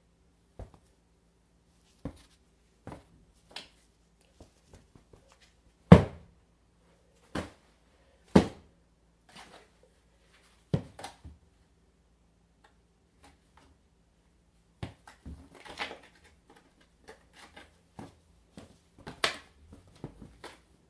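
Stuffed animals being hit by hand: a series of separate, irregularly spaced hits, the strongest two about six and eight seconds in, with quick clusters of hits around fifteen seconds and again near the end.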